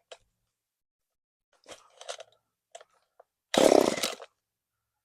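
Echo CS-3450 two-stroke chainsaw being pull-started, firing in one short burst of under a second about three and a half seconds in without running on, after a few faint clicks. The replacement carburetor is not yet tuned, and the owner suspects the high-speed mixture needs adjusting.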